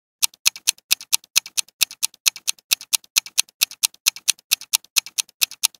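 Countdown-timer sound effect: clock-like ticking at about four to five ticks a second, alternating stronger and weaker like a tick-tock, starting just after the start and stopping abruptly near the end.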